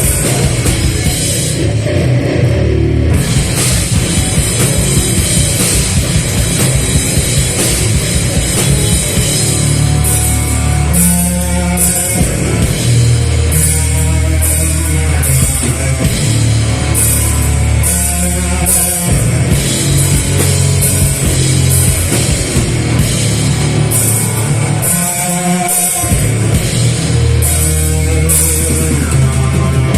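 A heavy metal band playing live and loud: bass-heavy, dense band sound with a drum kit. From about ten seconds in, cymbals are struck in a steady beat.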